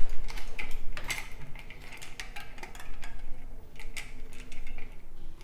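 Irregular metal clinks, clicks and knocks of BMX bike parts and tools being handled during assembly.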